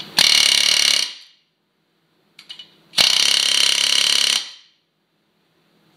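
Pneumatic air hammer firing in two bursts of about a second each, the second about three seconds in, driving a wheel stud into a brake rotor's hub flange. Faint clicks come between the bursts.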